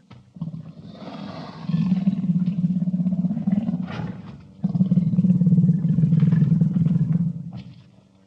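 Panther growling: two long, low growls, the second beginning about halfway through.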